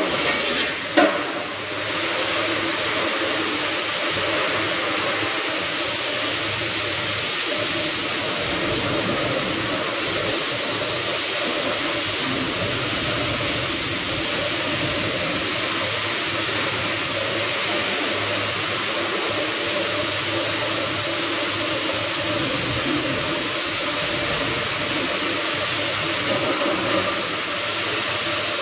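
Arc welding on a steel beam: a steady frying hiss that starts about two seconds in, just after a sharp knock, and holds evenly until it stops near the end.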